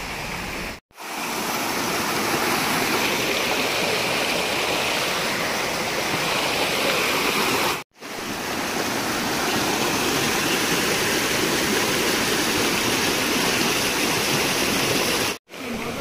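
Rushing water of a rocky forest stream, white water tumbling over stones in a steady, even rush. The sound drops out completely for a split second three times, at cuts between clips.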